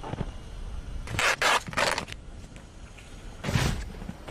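Material being pulled and torn off the wreckage of a small crashed plane: three quick rasping tears just over a second in, and another about three and a half seconds in.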